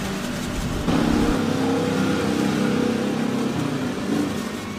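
A motor vehicle's engine running close by, a steady hum that comes in about a second in and dies away just before the end.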